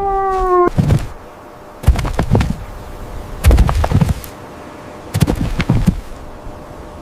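A long, steady howl ends abruptly under a second in. It is followed by four short, low, rough animal calls about a second and a half apart.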